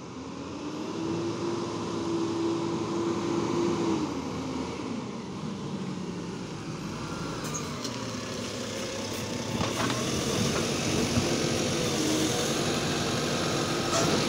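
Side-loader garbage truck's diesel engine approaching, its note rising for about four seconds and then dropping as it slows to a stop. It then keeps running while the automated side arm grabs and lifts a wheelie bin, with a few sharp knocks about ten seconds in and again near the end.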